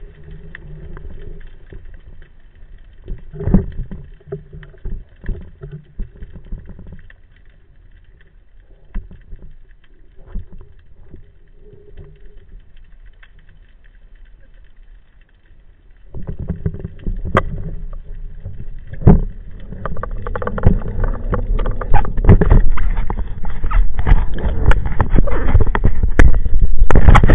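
Water noise on an underwater camera fixed to a speargun: faint scattered clicks and knocks at first, then from about sixteen seconds in a loud, dense crackling rush with a low rumble that builds toward the end, as the diver moves up toward the surface.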